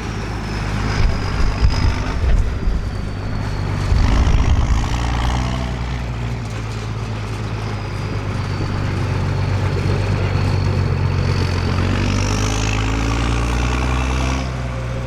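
Large diesel farm machinery running steadily during a maize silage harvest, with a low engine hum, heavier rumbling about a second in and again about four seconds in, and a faint high whine that dips and rises in pitch.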